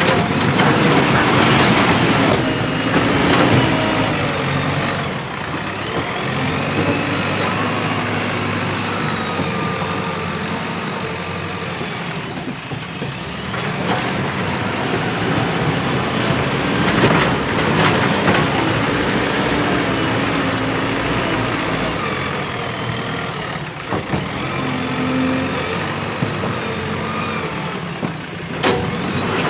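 JCB 3DX Plus backhoe loader's diesel engine running under load, its pitch rising and falling as it works, with a few short clanks.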